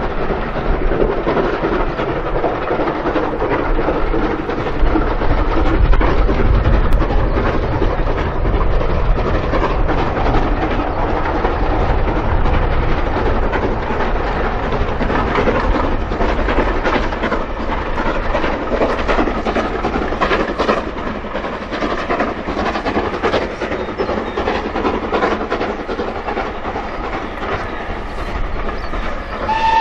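Steam locomotive working hard at the head of a passing train: a continuous loud exhaust with short clatters from the wheels and rail joints as the train rolls by.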